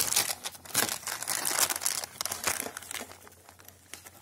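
Clear plastic bag holding SATA cables crinkling and crackling as it is picked up and handled. The crackle is densest over the first two or three seconds and thins out near the end.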